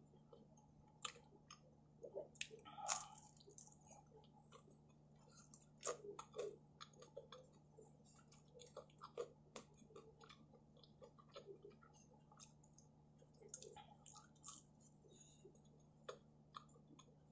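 Faint, irregular chewing of a crispy thin-crust pizza slice, with small crunches and wet mouth sounds.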